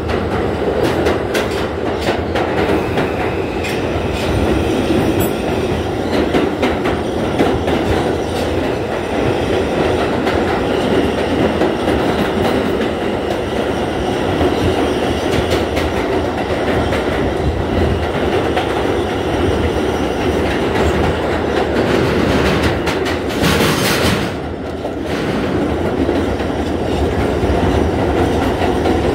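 New York City Subway R160A train running at speed through a tunnel, heard from inside the car: a steady roar of wheels on rail with frequent clicks over rail joints. Late on there is a brief louder rush, then a short dip.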